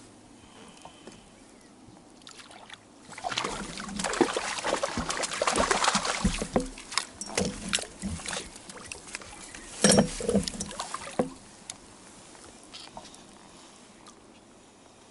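Water splashing and sloshing beside a small inflatable boat in irregular bursts from about three seconds in, loudest near ten seconds, stopping a little after eleven seconds: a hooked fish thrashing at the surface as it is brought in alongside.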